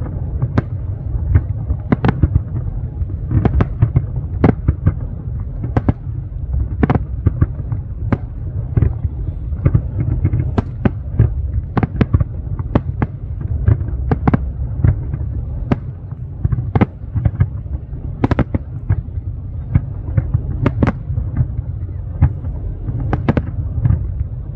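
Aerial fireworks display: shells bursting in rapid, irregular succession, sharp bangs about one to two a second over a continuous low rumble.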